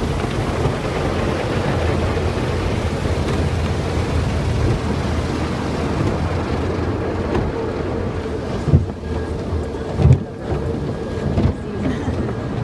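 Steady rushing noise of a car wash, with water spray and machinery drumming on the car. A few heavy low thumps come in the last few seconds.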